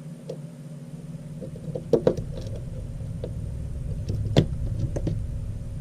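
Small Phillips screws being driven into an LG G5's housing: a few sharp clicks of the screwdriver and screws on the phone, the loudest a little over four seconds in, over a low steady hum.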